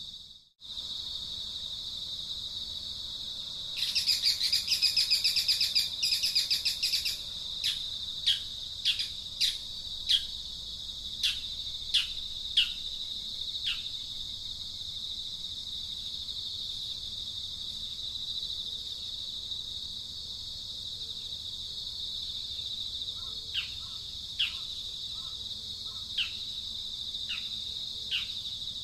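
Outdoor ambience: a steady, high-pitched drone of insects, with a bird calling over it. The bird gives a fast chattering trill for a few seconds, then a string of short whistled notes that each slide downward, about one or two a second, and a few more of them near the end.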